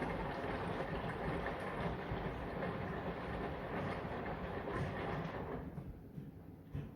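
Brandt front-loading washing machine running its cotton 40°C cycle, the drum turning with a steady rumble that dies away about five and a half seconds in.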